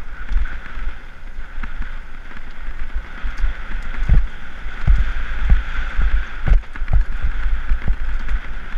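Mountain bike riding fast down a loose gravel fire road: wind rushing over the camera microphone and tyres rumbling on stones, with sharp knocks from the bike jolting over bumps, about five of them in the second half.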